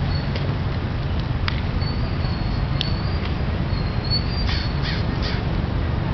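A crow cawing three times in quick succession, over a steady low rumble, with a few faint higher chirps and clicks.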